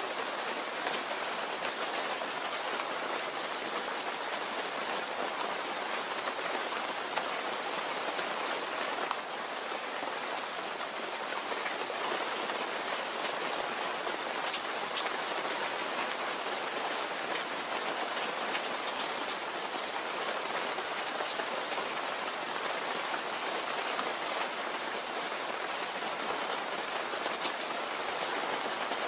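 Steady rain falling and pattering on a surface, with many small drop ticks heard over an even hiss.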